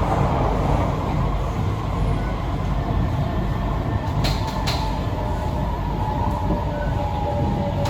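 Interior noise of a C151B metro train running on the track: steady low rumble with wheel-on-rail noise. There are two sharp clicks about four seconds in, and faint steady tones come in near the end.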